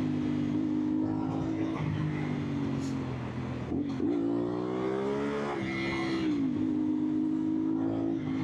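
CFMOTO 450SR's parallel-twin engine through an aftermarket exhaust, running at a steady pitch; about four seconds in the throttle opens and the revs rise for a second and a half, then fall back to a steady run.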